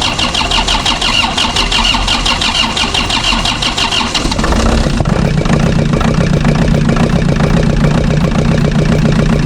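Diesel engine of a Caterpillar 903C compact wheel loader cranking fast on the starter for about four and a half seconds, with an injector line cracked to bleed air out of the fuel system. It then catches and settles into a steady idle.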